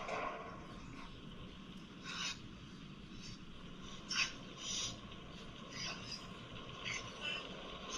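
Handling noise from a plastic toy and its cards: several short rubs and scrapes, spaced a second or two apart, after a louder sound tails off at the very start.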